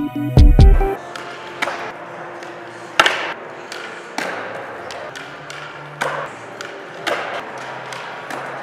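A brief music sting cuts off about a second in. Then skateboards are popped and flipped on a concrete floor: a series of sharp clacks of tail pops and wheels landing, echoing in a large indoor skatepark, the loudest about three seconds in.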